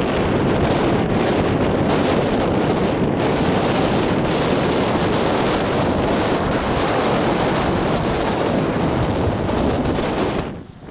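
Wind blowing across the microphone: a loud, steady noise that dips briefly near the end.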